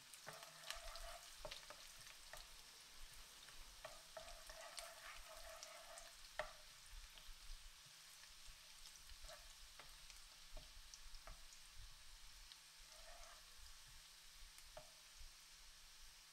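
Sliced garlic frying gently in oil, a faint sizzle, while a wooden spoon stirs and scrapes through it, knocking lightly against the pan now and then.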